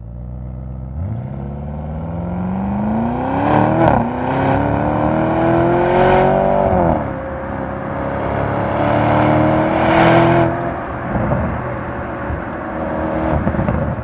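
Audi RS Q8 Performance's twin-turbo V8 accelerating hard, its note climbing in pitch in three pulls, each cut off by an upshift: about four, seven and ten and a half seconds in.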